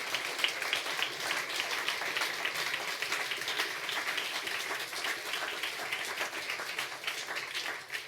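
Lecture audience applauding: many hands clapping steadily, then thinning out near the end.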